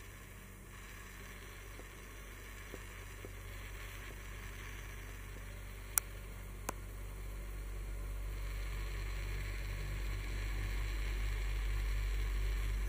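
A low, steady hum that slowly grows louder, with one sharp click about six seconds in and a fainter click shortly after.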